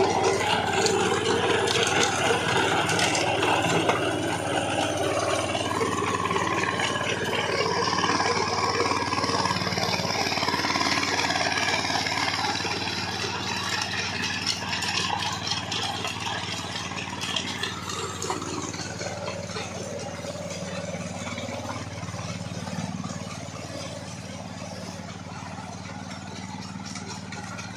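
Mahindra Yuvraj mini tractor's single-cylinder diesel engine running steadily while its rear rotary tiller churns through soil, fading gradually as the tractor drives away.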